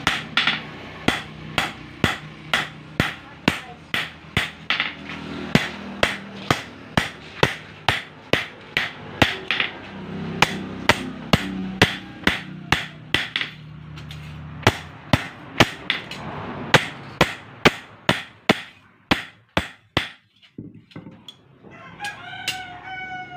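Hand hammer striking a steel blank cut from a motorcycle brake disc on a steel post anvil, about two blows a second, until the hammering stops near the end. A rooster crows in the last second or so.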